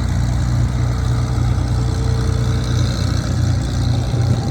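Hawker Hurricane's Rolls-Royce Merlin V12 engine running steadily at low taxiing power, with a deep, even rumble.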